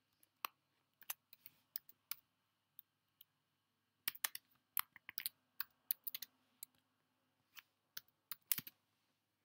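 Keystrokes on a computer keyboard as a file name is typed. A few scattered single taps come first, then a quick run of keys about four seconds in, and a few more near the end.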